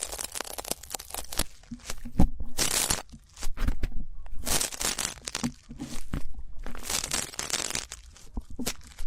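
Ear pick scraping and rubbing close to the microphone in repeated scratchy strokes, about one a second, with small clicks between them.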